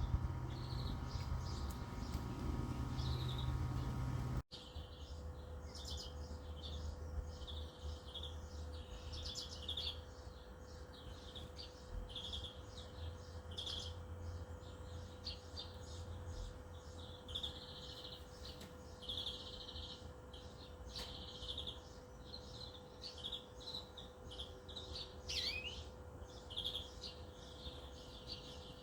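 Small songbirds singing and chirping, many short high notes overlapping, over a steady low hum. The sound cuts off abruptly about four seconds in and resumes with the birdsong.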